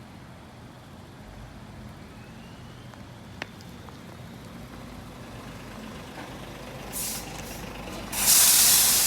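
Steady low rumble of highway traffic. About seven seconds in a truck's air brakes give a short hiss, then a much louder, longer hiss of air release starts just after eight seconds.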